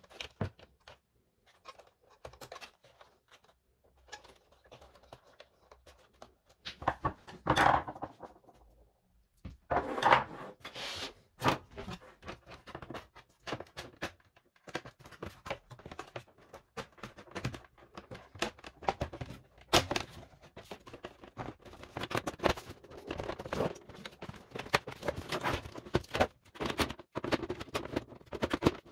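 Handling noise from reassembling a Siemens EQ.5 bean-to-cup coffee machine: irregular plastic clicks and knocks as its plastic side panel is worked back onto the housing. There are louder, longer noises about seven and ten seconds in, and the clicking gets denser in the second half.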